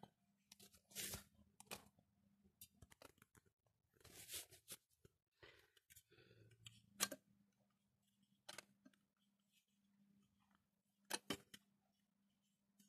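Faint, scattered clicks and knocks of small tools and objects being handled, with a soft rustle about four to seven seconds in.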